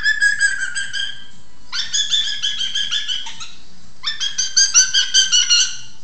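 African grey parrot calling: three bursts of rapid, repeated high-pitched notes, each burst lasting a second or more.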